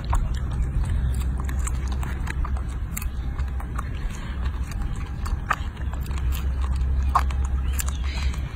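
Baby monkey biting and chewing strawberries: many small, sharp clicks scattered throughout, over a steady low rumble.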